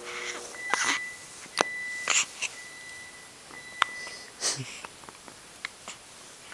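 Newborn baby hiccupping: several short, sharp hiccups with small breaths between them, over the first four or five seconds.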